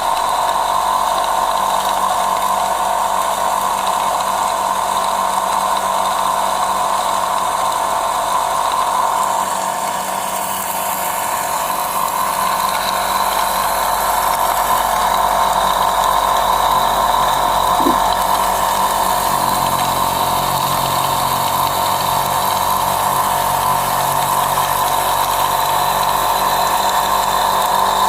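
Homemade electric pepper-grinding machine running, milling peppercorns into powder: a loud, steady mechanical whir that grows a little brighter and hissier about ten seconds in.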